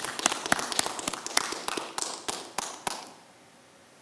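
Scattered applause from a small audience: separate sharp claps, several a second, dying away about three seconds in.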